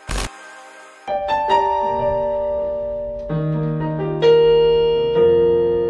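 Electronic keyboard playing slow held chords in a piano voice, a new chord or note struck roughly every second and left to fade. A short, sharp burst of noise comes just before the playing begins.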